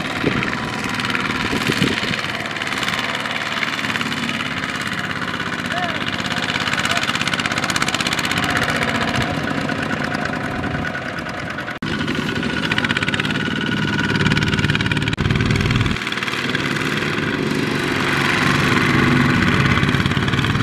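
Single-cylinder diesel engine of a Kubota ZT155 two-wheel power tiller running steadily under load as it hauls a loaded trailer, with a brief break about twelve seconds in.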